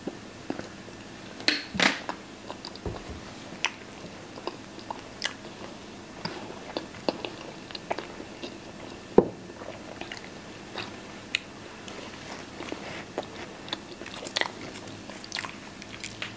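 Close-up eating sounds: biting and chewing toast with baked beans, with many scattered short clicks and wet smacks and one sharper knock a little after nine seconds in.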